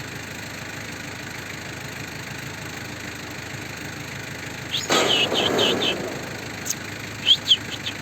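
An engine idling with a steady hum. About five seconds in comes roughly a second of rustling with quick high squeaks, and two short squeaky chirps follow near the end.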